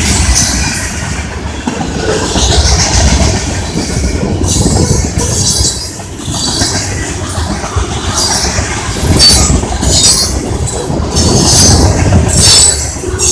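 Freight train rolling past at close range: a steady heavy rumble of wheels on rail, with high-pitched wheel squeals flaring up again and again, about once every second or so.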